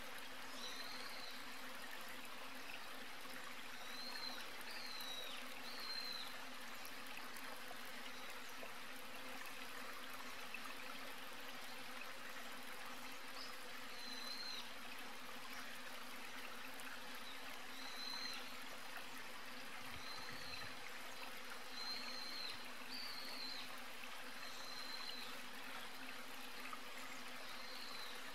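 Steady background hiss with a constant low hum, broken every second or two by short high chirps.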